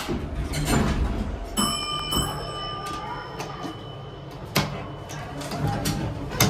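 Heights elevator car with its door sliding over a steady low rumble; an electronic chime of several pitches sounds for about a second, starting about a second and a half in. Later come two sharp clicks about two seconds apart as buttons on the car's panel are pressed.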